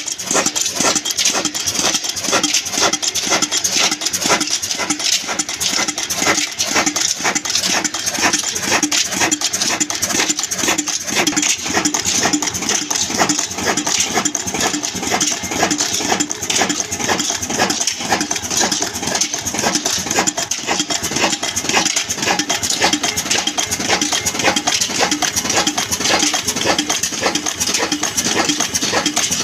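Old black stationary diesel engine running steadily, with a fast, even metallic clatter.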